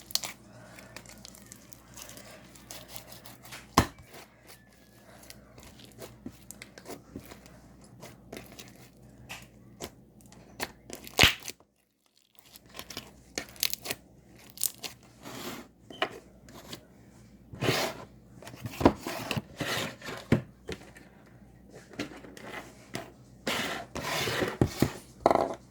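Sticky slime being kneaded and pulled by hand: irregular crackling, tearing and popping clicks, with about a second of silence midway.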